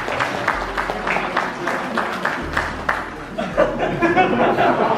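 Audience applauding, with many quick claps, and crowd voices and chatter taking over near the end.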